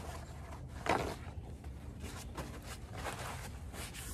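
A paper towel is pulled and torn from the roll with a short rustle about a second in, then rubbed over the kayak's hull with soft scuffing.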